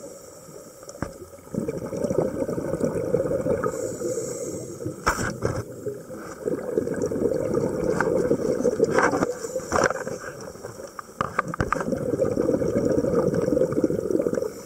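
Muffled underwater bubbling and rushing water heard through a diver's camera housing, swelling and easing every few seconds, with a few sharp knocks in the middle.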